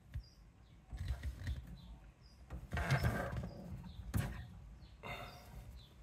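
Faint handling sounds of a filling-loop valve being worked with a spanner under a combi boiler: scattered rustles, a sharp metallic click about four seconds in, and faint short high chirps repeating about once a second.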